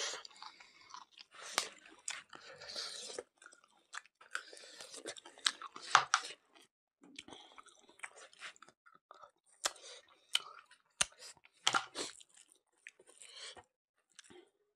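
Close-miked chewing of mutton curry and rice, with wet mouth smacks, crunchy bites and sharp clicks coming irregularly.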